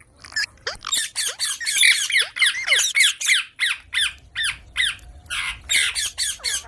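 Baby Indian ringneck parrot giving a long run of short, harsh squawks, several a second.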